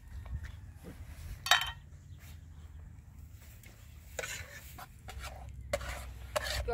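Metal spatula scraping and clinking against a wide metal pan as food is stirred, with a sharp clink about a second and a half in and several more near the end.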